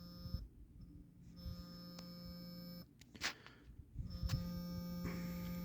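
Samsung Galaxy S2's vibration motor buzzing steadily in long pulses: one ending shortly after the start, one of about a second and a half in the middle, and one from about four seconds in to the end.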